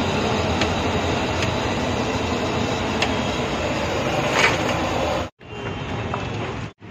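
Samosas deep-frying in a kadai of hot oil: a steady, loud sizzle, with a few light clinks of the metal slotted ladle and a brief louder clatter. The sizzle cuts off abruptly about five seconds in, leaving quieter background noise.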